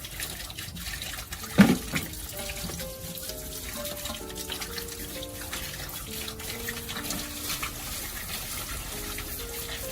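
Running water with soft background music of held notes; one sharp knock about a second and a half in.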